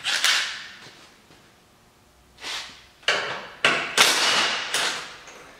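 Cordless impact wrench with a half-inch socket running in several short bursts as it spins off the ATV's bumper bolts. The longest burst comes near the end and lasts over a second.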